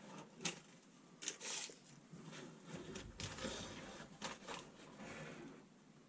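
Faint handling sounds as a tape measure is moved over a fabric bag by hand: soft, irregular rustles with a few light clicks.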